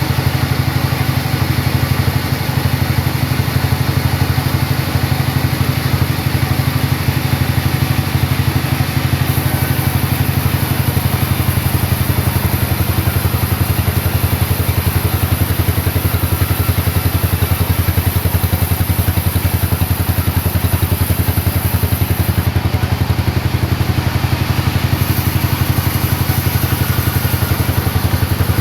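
A sawmill's engine running steadily with a fast, even pulsing throb. A high hiss comes in about nine seconds in, drops out briefly near the end, then returns.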